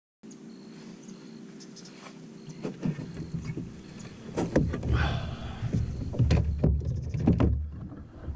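Knocks, clicks and low thumps on a plastic fishing kayak as a freshly caught bass is handled and measured, over a faint steady hum in the first few seconds.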